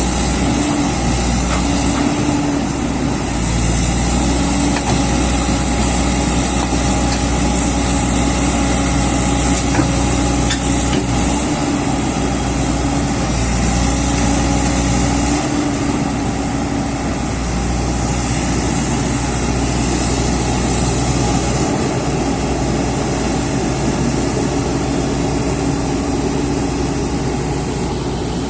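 Diesel engine of a JCB excavator running steadily while it digs and loads, its note shifting several times as the load on the engine changes.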